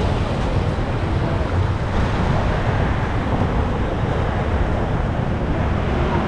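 Steady wind noise buffeting the microphone, a rushing sound heaviest in the low end.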